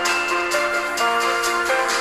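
Electronic ringtone music, a Samsung Galaxy S6 ringtone: a synth melody of held notes over a steady beat of about four strokes a second.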